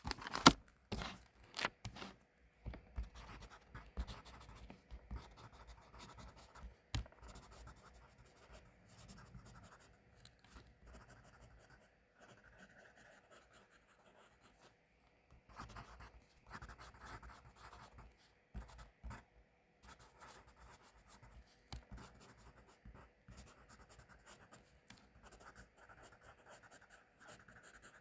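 Pencil writing on paper: a continuous run of irregular scratching strokes, with a few sharper taps in the first couple of seconds and a quieter stretch around the middle.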